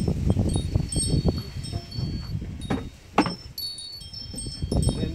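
Wooden boxes being set down and shifted on a table, with a sharp knock about three seconds in. Chimes ring high and thin in the background.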